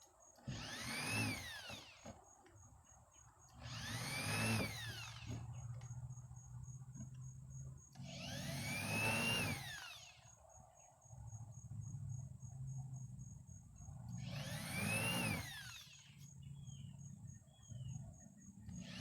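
Power drill spinning a hand countersink bit into wooden screw holes in four short runs, each winding up and then running down. The bit cuts poorly, leaving rough, ragged countersinks.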